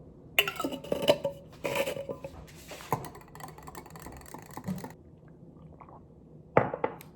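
Clinks and knocks of a coffee mug and syrup bottle as peppermint syrup is added to coffee. A dense run of clatter comes in the first three seconds, lighter knocks follow, and a single sharp knock comes near the end.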